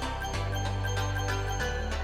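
Background music: sustained bass notes changing every second or so, with bright bell-like tinkling notes on a steady beat.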